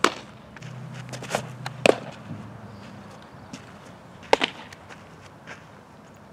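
A softball striking leather: sharp single knocks of the ball smacking into a fielder's glove and into a catcher's blocking gear, five or so separate impacts with the loudest right at the start and a close pair about four seconds in. A faint low hum runs under the first two seconds.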